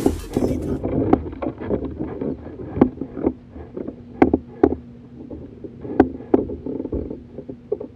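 Water splashing beside a kayak as a hooked bull redfish is brought alongside, then a series of sharp knocks and bumps on the kayak as it is handled, the loudest about three, four and six seconds in.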